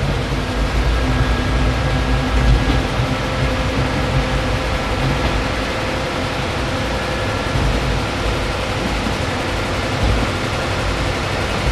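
KiHa 20 diesel railcar running, its DMH17-type diesel engine giving a steady drone with a few held tones over it.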